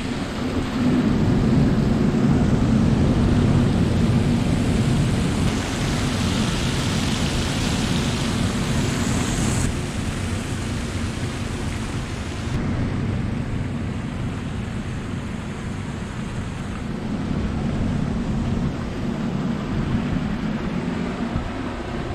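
Steady low rumble of a hydroelectric power station's turbines and outflow water, with a hiss of rushing, spilling water over it. The hiss brightens in the middle and drops off abruptly about ten seconds in.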